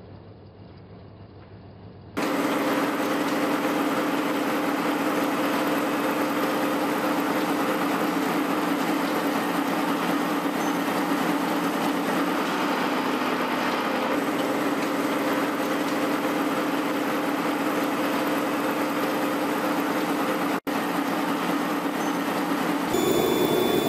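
Face-milling cutter on a GMTK Accuracer vertical mill-turn machine cutting across a steel block: a steady, dense machining noise with a low hum held beneath it. It starts suddenly about two seconds in, after a faint, muffled stretch, and breaks off for a split second near the end.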